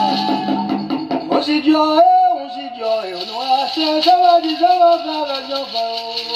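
Sung prayer: a voice singing a slow chant melody of held and gliding notes, with a brief run of rattling clicks about a second in.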